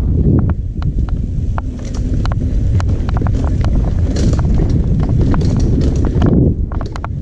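Mountain bike ridden fast over a bumpy dirt trail, heard on a GoPro Hero 5 carried by the rider. Heavy wind rumble on the microphone, with frequent sharp clicks and rattles from the bike over the rough ground.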